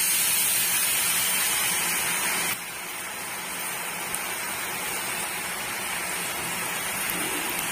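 Drops of gram-flour (besan) boondi batter sizzling steadily in hot deep-frying oil. The sizzle drops suddenly in level about two and a half seconds in.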